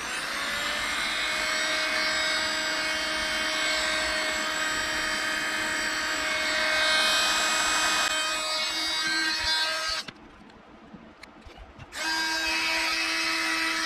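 Handheld heat gun blowing hot air with a steady fan whine, heating the glued-down digitizer glass to soften its adhesive. It switches off about ten seconds in and comes back on about two seconds later.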